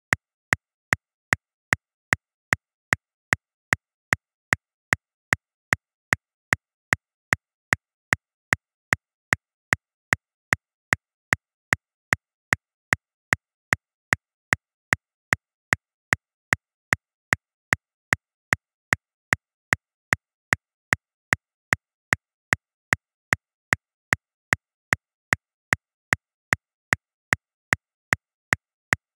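Metronome clicking steadily at 150 beats per minute: about two and a half short, sharp clicks a second, all alike, with silence between them.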